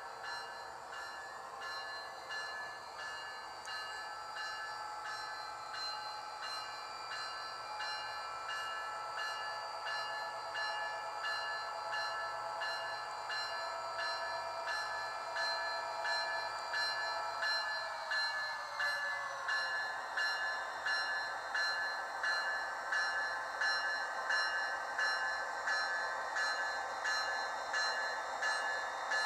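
Sound decoder of model Amtrak F40PH diesel locomotives playing their diesel engine sound through the onboard speaker as the locomotives run. The engine tone is steady at first, then glides down in pitch about two-thirds of the way through, and a regular pulsing beat sets in as they pass.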